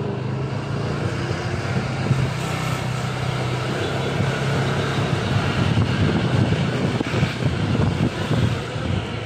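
A vehicle engine running steadily, with a constant low hum under road and wind noise, heard from on board while moving along a street.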